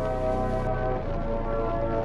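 Background music of held chords, changing about once a second.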